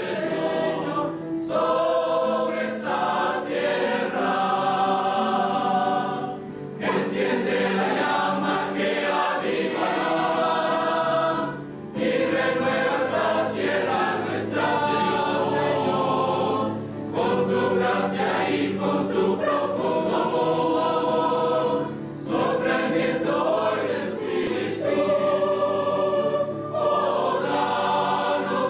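Mixed choir of men's and women's voices singing together, in phrases broken by short pauses for breath about every five seconds.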